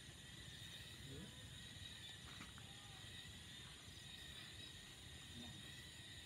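Near silence with a faint, steady chorus of night insects: a continuous high-pitched trilling.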